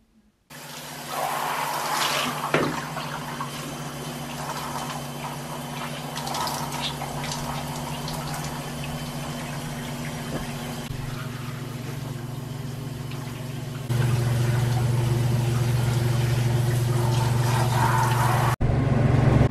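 Water running from a bathtub faucet as hair is washed under the spout: a steady rush with a low hum under it, growing louder about two-thirds of the way through.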